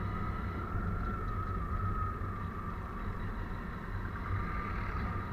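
Hero Splendor 100 cc single-cylinder motorcycle engine running steadily at cruising speed, heard from the rider's seat over a steady low rumble.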